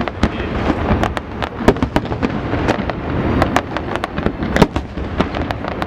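Fireworks display: a rapid, irregular barrage of sharp bangs and cracks, several a second, over a continuous low rumble.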